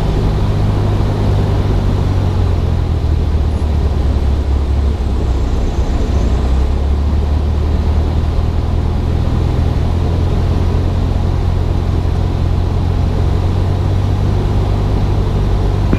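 Cessna 172SP's four-cylinder Lycoming engine and propeller droning steadily, heard inside the cabin over a hiss of rushing air, on final approach with full flaps.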